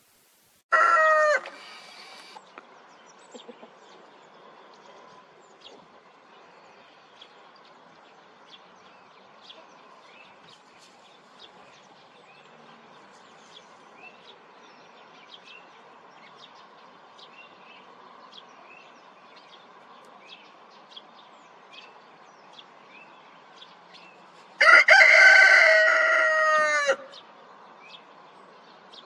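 Rooster crowing twice: a short loud crow burst near the start, then, after a long pause, one full crow of about two and a half seconds that falls away at its end. In between, faint small-bird chirping.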